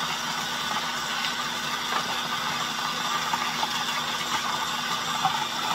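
KitchenAid food processor running steadily with its shredding disc, shredding baby carrots fed through the feed tube.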